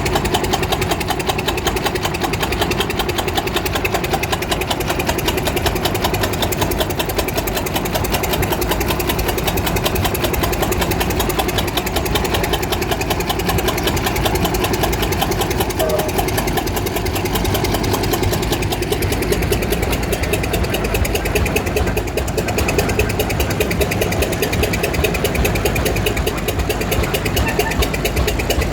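Tractor engines running steadily with a fast, even firing beat.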